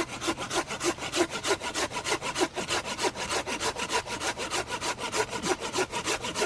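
Cheap manual folding saw cutting through a branch with quick, even back-and-forth strokes, each stroke a rasp of the teeth through the wood.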